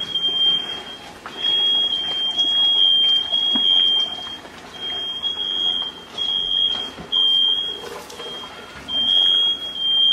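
Household smoke alarm sounding: long, high beeps on one steady pitch, coming in runs of two or three with short pauses between runs. It has been set off by smoke from cooking.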